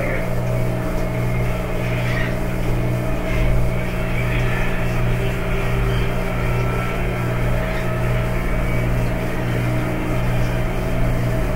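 Steady low hum under background noise, with no one speaking.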